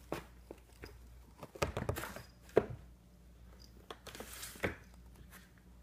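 A cat high on silvervine rubbing and scraping its face against a corrugated cardboard claw scratcher. The result is irregular scratchy rustles and sharp clicks, the loudest click about two and a half seconds in.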